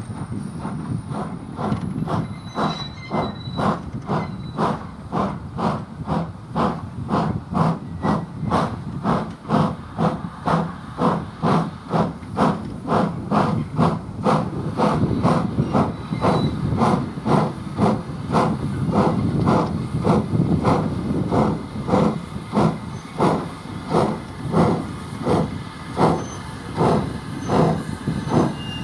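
Peckett OY-1 0-4-0 saddle-tank steam locomotive chuffing at a slow, steady beat of about two exhausts a second as it works hard hauling a train of empty coaches up a gradient.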